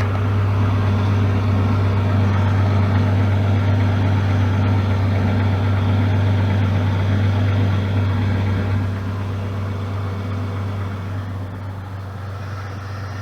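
Jeep Grand Cherokee WJ engine idling steadily with a low hum, growing quieter after about nine seconds.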